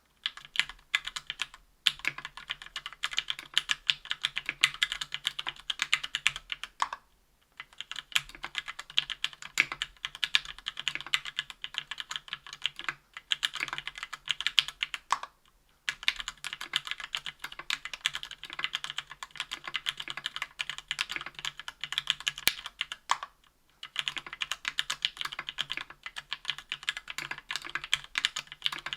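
Steady typing on a KBDfans Tofu 60% aluminium keyboard with lubed SP-Star Nana 65g linear switches, an aluminium plate and GMK keycaps. It is a fast run of keystroke clacks, broken by a few short pauses.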